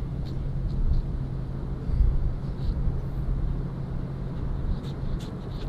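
A steady low mechanical hum over a low rumble, swelling briefly about two seconds in, with a few faint light ticks.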